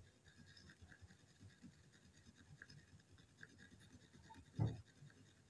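Faint scratching of a thin stick stirring two-part epoxy on a flat scrap, with a soft knock about four and a half seconds in.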